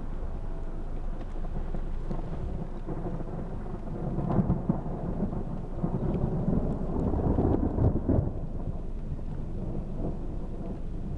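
Thunder rumbling over steady rain, swelling louder twice around the middle.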